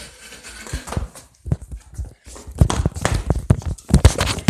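Irregular knocks, taps and rubbing from a handheld phone being jostled and brushed against the body, sparse at first and much louder and busier from about halfway through.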